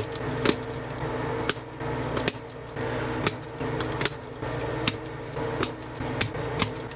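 Sharp plastic clicks and taps, irregular, about one or two a second, from mechanical keyboard switches being handled and fitted into the board, over a steady low hum.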